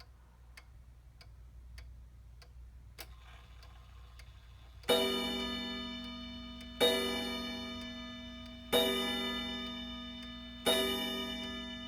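Waltham 31-day wall clock ticking steadily. After a click about three seconds in, its chime strikes four times about two seconds apart, each blow ringing on and fading before the next. The strike shows the chime still works.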